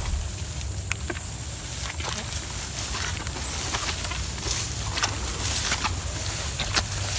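Footsteps through tall grass, the stalks rustling and crackling in many short, irregular snaps, over a steady low rumble.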